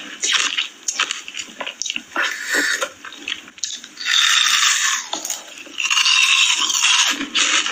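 Close-miked eating sounds of someone eating ice cream: wet chewing, biting and mouth clicks, with two longer noisy stretches in the second half.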